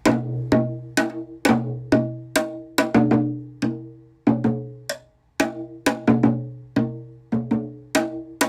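Percussion struck in a quick, steady rhythm, about two to three strokes a second. Each stroke rings with a pitched, hollow tone that dies away over a steady low hum.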